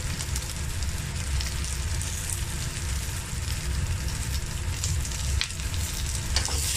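Chopped onion and peppers sizzling steadily as they are stir-fried over high heat in a stainless-steel wok, with a low hum underneath. A few sharp clicks come near the end.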